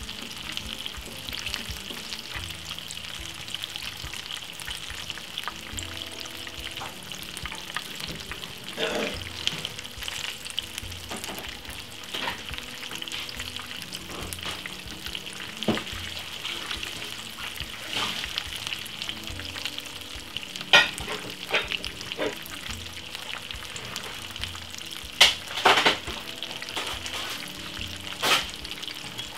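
Coated salmon pieces shallow-frying in hot oil in a frying pan, second side down: a steady sizzle with sharp pops and crackles now and then, the loudest few coming in the last third.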